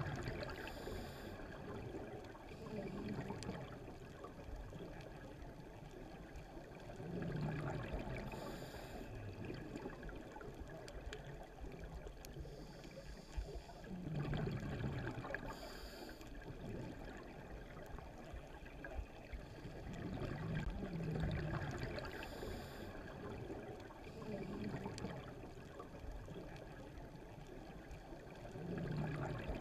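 Scuba diver breathing through a regulator underwater: each slow inhalation is followed by a short rush of exhaust bubbles, repeating about every seven seconds over a steady watery hiss.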